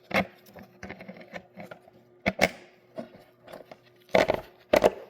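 Irregular sharp clicks and knocks of the air filter cover and its parts being handled and seated over the carburettor of a Kohler 18 hp engine, the two loudest knocks coming near the end.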